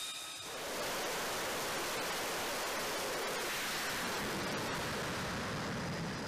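Steady roar of an F-35C's jet engine in afterburner during a carrier catapult launch, swelling about half a second in and then holding even.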